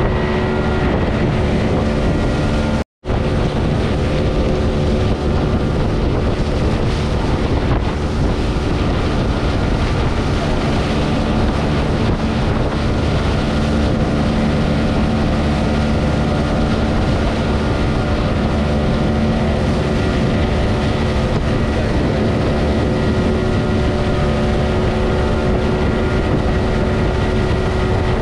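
Motorboat engine running steadily at speed, with wind buffeting the microphone. The sound drops out for an instant about three seconds in.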